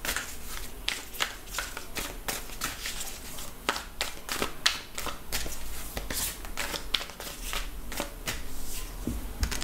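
Tarot deck being shuffled overhand between the hands: an uneven run of short card clicks and slaps, a few each second.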